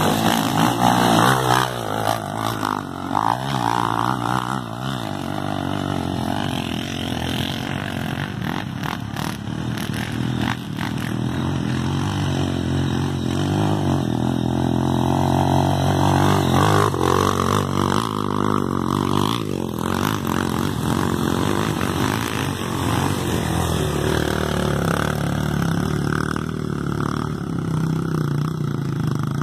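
Off-road motorcycle engine running and revving under load on a dirt hill climb, its pitch rising and falling with the throttle.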